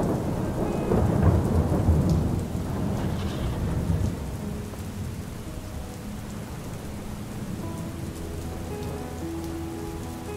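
Steady rain falling, with a low roll of thunder rumbling through the first few seconds and dying away into the rain.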